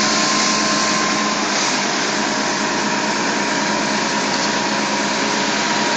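Fire truck's engine-driven pump running steadily, supplying water to a hose line: an even rushing noise with a steady hum.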